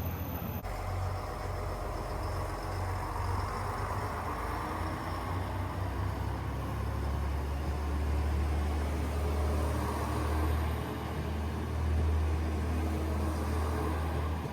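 Vehicle engine running: a steady low rumble with a hiss over it. The sound changes abruptly about half a second in.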